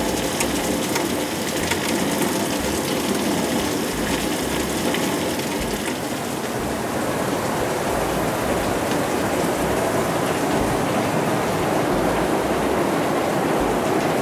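Heavy downpour: rain falling hard in a steady, loud hiss that does not let up.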